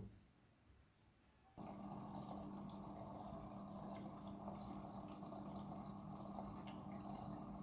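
Midea front-loading washing machine on its rinse cycle: after a short pause it starts up again about a second and a half in, with a steady low hum and the sound of water in the drum.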